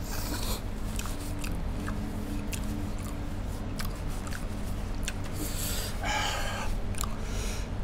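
Mouth sounds of eating: chewing with small wet clicks, and a breathy burst about six seconds in, over a steady low hum.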